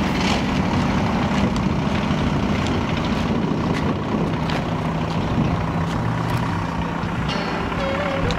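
Audi RS4's twin-turbo V6 running at low revs as the car rolls slowly past, a steady low engine drone.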